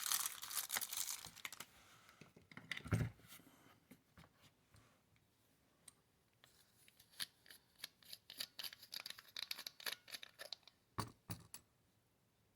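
Small handling noises from a compact flashlight and its packaging being worked on a bench: crinkling and scratching at first, a dull knock about three seconds in, then a run of small scratchy clicks and another knock near the end as the light is opened to take its battery.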